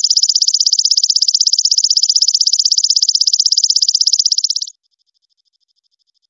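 Golden katydid (belalang emas) stridulating: a loud, high-pitched trill of fast, even pulses that cuts off abruptly about three-quarters of the way through.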